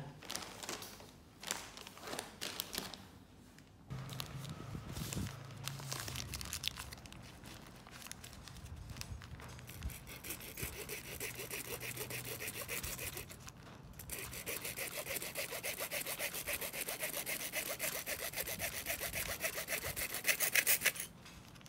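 A bare hand-held hacksaw blade sawing back and forth through the end of a hard plastic clothing security tag in quick, even strokes. The strokes get louder toward the end and stop abruptly shortly before it. A few handling knocks and clicks come in the first seconds.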